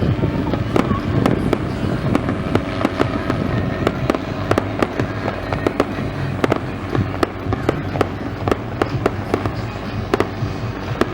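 Fireworks going off: a dense run of irregular pops and bangs, several a second, over a continuous crackling rumble.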